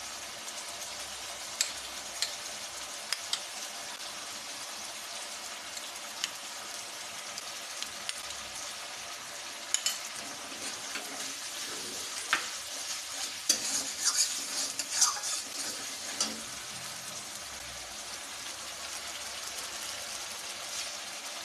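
Onion, tomato and garlic masala paste sizzling in hot oil in a pan, with a spatula stirring it and clicking against the pan now and then, the stirring busiest in the middle stretch.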